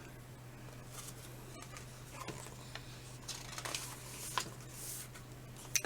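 Quiet room tone with a steady low hum and a few faint rustles and soft clicks.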